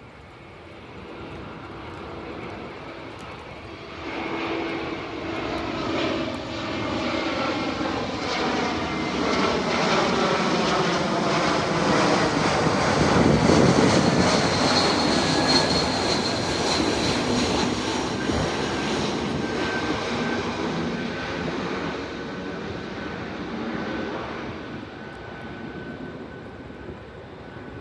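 Airbus A321-231 airliner on landing approach flying low overhead, its two IAE V2500 turbofan engines growing louder, loudest about halfway through, then fading away. A high engine whine drops in pitch as it passes.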